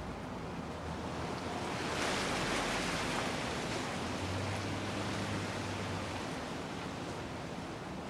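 Bellaire three-blade ceiling fan running, a steady rush of air with a faint low motor hum. The rush swells briefly about two seconds in, then settles back.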